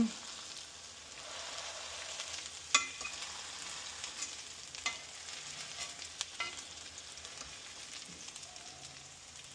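Ground-chicken and potato patties sizzling in hot olive oil in a stainless steel pan, pressed down, with a few sharp clicks against the pan, the loudest about three seconds in.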